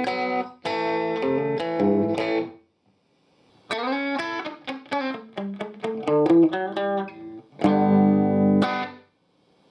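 Electric guitar played through a Marshall DSL40C amp and a Celestion speaker. Two short chord phrases come first, then a pause of about a second, then a quick run of single picked notes. A final chord rings for about a second and is cut off near the end.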